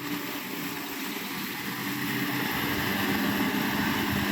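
Hydraulic excavator's diesel engine running steadily, its engine note shifting lower about three seconds in.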